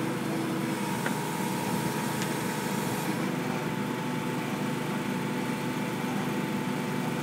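An 8-tonne 360 excavator running steadily under hydraulic load, with a steady tone held throughout, as it works a pipe-pushing clamp along 280 mm HDPE pipe. A couple of faint clicks come in the first few seconds.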